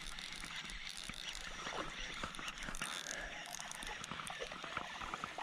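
Light clicks and rustles from a baitcasting rod and reel being handled and cast.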